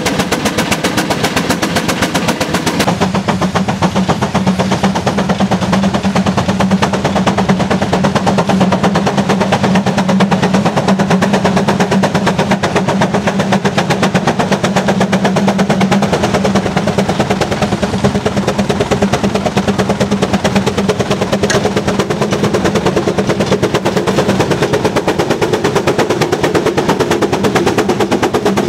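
Antique engine running, its exhaust making a fast, even train of sharp pops over a steady low hum.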